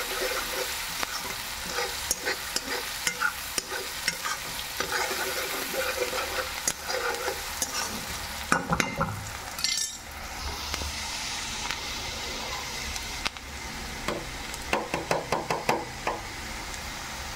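Chopped onions sizzling as they fry in oil in a kadhai, while a metal spatula scrapes and clicks against the pan as they are stirred. The clicks come in bunches, with a stretch of plain sizzling around the middle.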